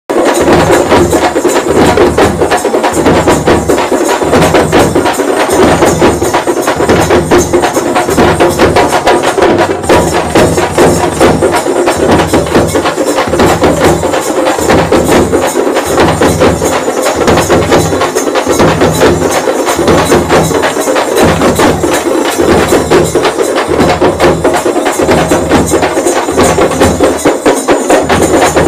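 Loud background music with a steady, driving beat.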